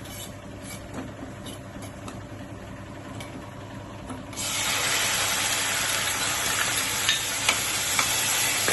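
Ajwain seeds in hot ghee being stirred in a pan, with faint spoon ticks. A little over four seconds in, a loud, steady sizzle starts suddenly as the ground ginger goes into the hot ghee, with a few spoon taps against the pan.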